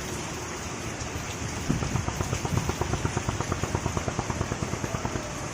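Steady hiss with a run of quick light knocks, about six a second, through the middle.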